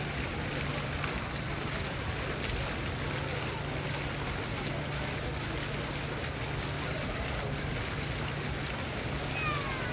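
Steady wash of background noise with faint, indistinct voices and a low hum. A brief falling whistle-like glide comes near the end.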